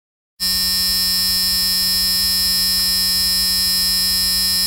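Car's electric warning buzzer sounding inside the cabin: a harsh, steady buzz that switches on suddenly about half a second in and holds one unbroken pitch.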